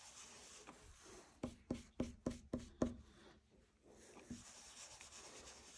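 Faint rubbing of an ink blending brush on paper, with a quick run of about seven soft taps in the middle.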